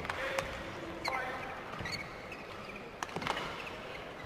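Court shoes squeaking on a badminton court floor a few times, with scattered sharp taps over the low noise of the hall.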